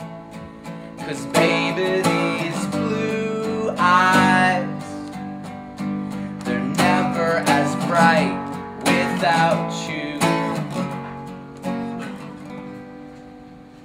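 Steel-string acoustic guitar strummed, chords ringing; the playing grows louder about a second in and dies away near the end.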